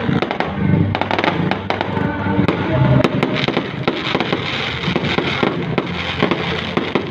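Fireworks display going off: a dense, unbroken run of sharp cracks and pops, many to the second.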